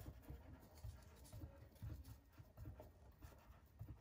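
Felt-tip marker writing on a whiteboard: faint, irregular short strokes and squeaks as a word is written out.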